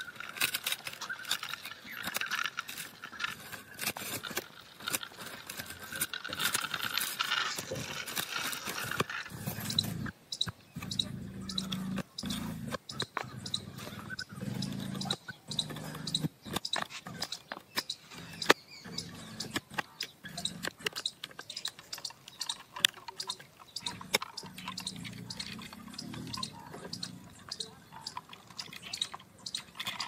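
Small die-cast toy car wheels rolling and scraping over rough, gritty concrete, giving an irregular run of crunchy crackles and small clicks.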